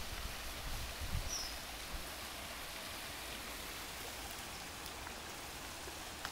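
Steady splashing hiss of a small waterfall spilling into a stream, with a brief low rumble about a second in.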